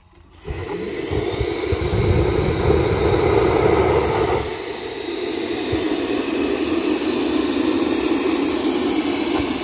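Homemade KJ66 model jet turbine, fed diesel with 10% gasoline, starting up. A rushing roar sets in about half a second in over a low rumble. The rumble drops away a little after four seconds, leaving a steady roar with a high whine.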